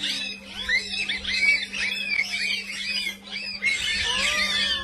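A group of banded mongooses giving rapid, overlapping high chirps, several a second, as they mob a snake. A steady low hum runs underneath, and a couple of longer, lower gliding calls come in near the end.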